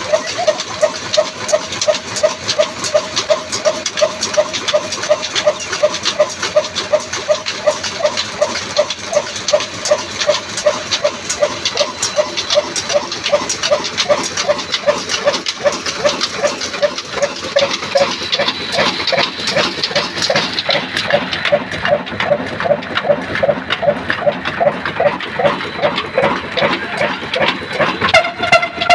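Super Nafees 22 single-cylinder horizontal diesel engine running steadily with a heavy flywheel, its exhaust beating evenly at about two to three beats a second.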